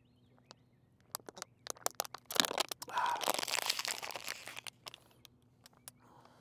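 A few sharp clicks, then about two seconds of close rustling and crinkling from something being handled, loudest about three seconds in.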